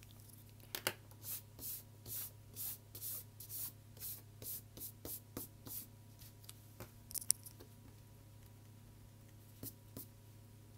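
Rubber eraser scrubbed back and forth on drawing paper, erasing pencil guidelines: about two short rubs a second for some five seconds, then a sharp click and a few scattered light taps.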